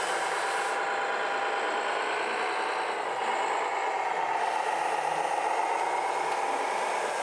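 Radio-controlled model vehicle's motor and gearbox whining steadily, the pitch drifting slowly up and down, over a rattling, scraping running noise.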